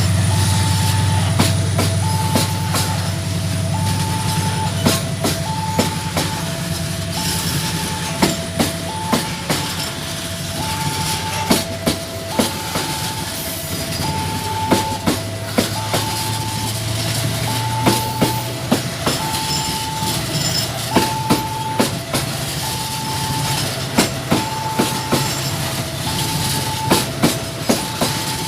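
A long Babaranjang coal train passes: the low drone of its CC 205 diesel locomotives fades over the first few seconds. Then the wagon wheels click over rail joints in repeating clusters. An alternating two-note warning tone sounds throughout.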